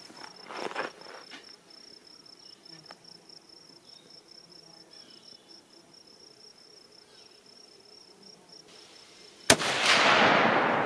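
A single .30-06 rifle shot about nine and a half seconds in, a sharp crack whose boom rolls away and fades over more than a second. Before it, insects chirp in a steady pulsing rhythm, with some rustling of the shooter settling in behind the rifle.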